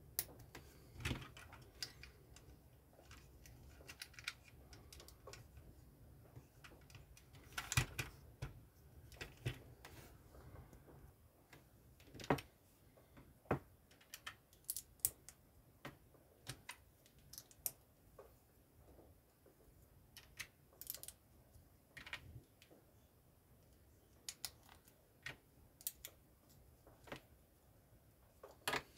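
Small plastic LEGO pieces clicking and snapping as they are handled and pressed together. The clicks come singly and in short clusters at an irregular pace.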